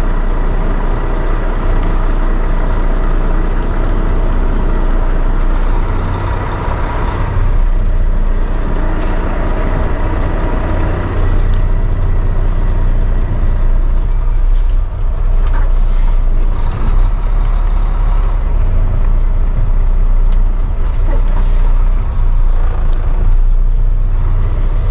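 Semi-truck diesel engine running steadily with a low drone, heard from inside the cab while the truck reverses a trailer.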